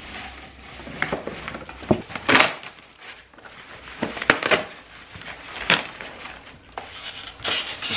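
Packing material and cardboard rustling and crinkling as wrapped items are dug out of a shipping box, with a few sharper knocks of boxes and packaging being handled.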